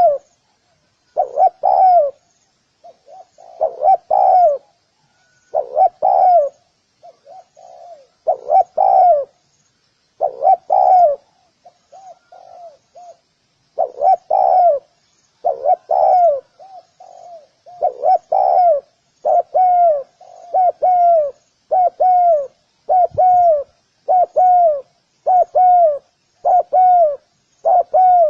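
Spotted dove cooing: repeated phrases of falling coos, with softer, quieter coos between them. In the second half the phrases come steadily, about one a second.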